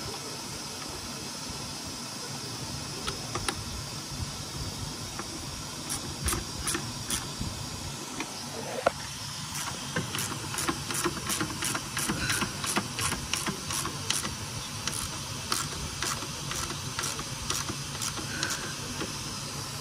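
Hand wrench ratcheting in short runs of sharp clicks while tightening intake manifold bolts, over a steady hiss.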